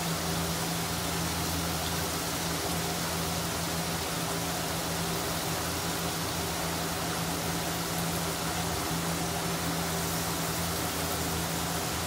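Deep-frying: flour-dusted whole fish sizzling in hot oil, a steady hiss, over a steady low hum.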